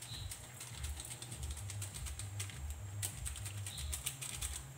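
Light, irregular ticking and crackling from a wok of simmering vegetables as seasoning granules are sprinkled in from a sachet, over a low hum that pulses about twice a second.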